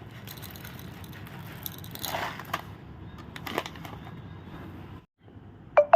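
Spoon and dry sago pearls being handled in a bowl: light scraping with a few soft clicks, and one sharp click near the end.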